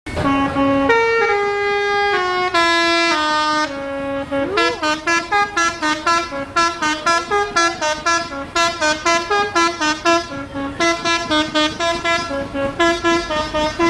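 Bus 'telolet' musical horn playing a tune: a few long held notes stepping down in pitch, then a quick run of short notes, about three a second, from about four and a half seconds in.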